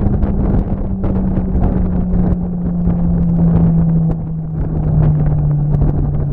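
A motor's steady hum, slowly dropping in pitch as it eases off, under heavy wind buffeting on the microphone.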